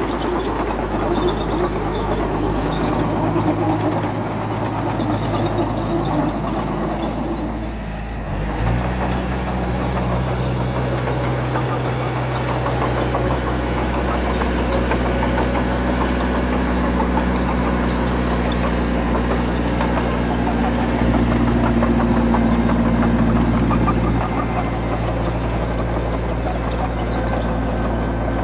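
Diesel engine of heavy earthmoving equipment running steadily under load. About eight seconds in it dips briefly, then picks up to a higher pitch, and it eases back down a few seconds before the end.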